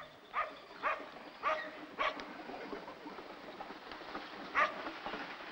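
A dog barking: a handful of short, separate barks, with a longer gap before the last one, over a steady background hiss.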